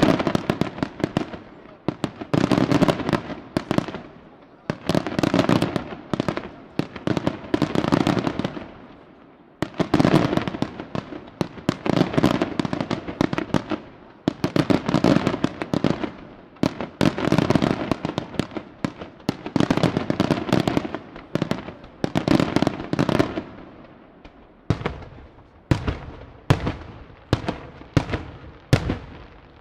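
Aerial fireworks display: shells bursting in rapid volleys of sharp reports and crackle, which swell and die away in waves every two to three seconds. Near the end the reports come more singly, about one a second.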